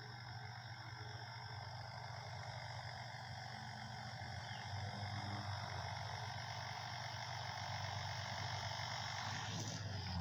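WLtoys V950 RC helicopter in flight: a steady whine of the electric motor and spinning rotors, holding several fixed tones and slowly growing louder. The high part of the whine drops away near the end.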